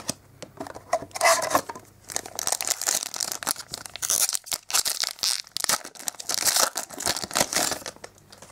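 A foil-wrapped My Little Pony trading card fun pack being torn open and crinkled by hand: a dense run of crackling, rustling tears that stops shortly before the end.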